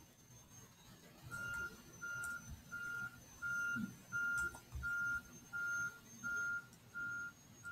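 Steady electronic beeping at one pitch, about three short beeps every two seconds, starting about a second in. A faint steady high whine runs underneath.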